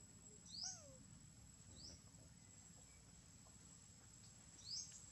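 Three short rising chirps from a small animal, about a second in, just before two seconds and near the end, over a faint steady high whine.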